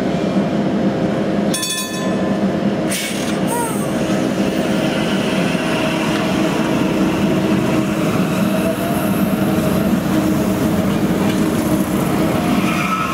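Translohr rubber-tyred guided tram on Michelin tyres passing close by at low speed: a steady electric drive hum with several held tones over tyre and running noise. A short ringing sound comes about a second and a half in.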